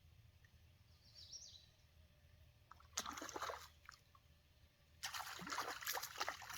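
Water splashing and trickling in two bursts, a short one about three seconds in and a longer one from about five seconds in.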